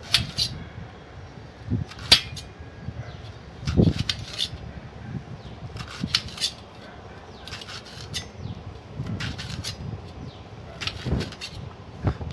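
Knife slicing a peeled raw plantain into rounds on a steel plate: each cut ends in a sharp knock of the blade on the metal, at irregular intervals of about a second or two.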